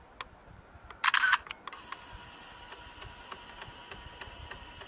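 Sony Mavica digital camera taking a picture: a short loud shutter sound about a second in. Then its built-in 3.5-inch floppy disk drive whirs steadily with small ticks as it writes the photo to the disk.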